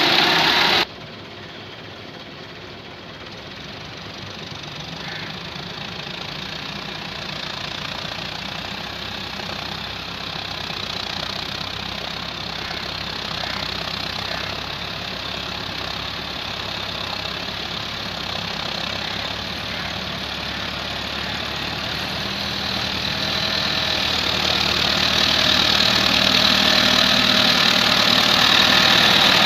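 Massey Ferguson 385 tractor's diesel engine running. It turns abruptly quieter about a second in, then grows steadily louder as the tractor comes closer over the last several seconds.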